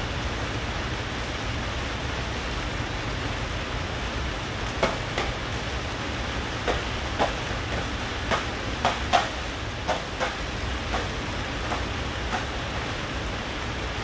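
Steady rain hiss with a low hum beneath it, and about a dozen sharp ticks landing irregularly, mostly in the second half, like drops striking a hard surface.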